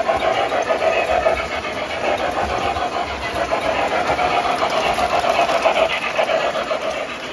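MTH RailKing O-gauge model steam locomotive and its loaded flat cars running past on three-rail track: a steady running noise of motor, wheels and rails, a little louder in the middle as the locomotive and first cars pass close.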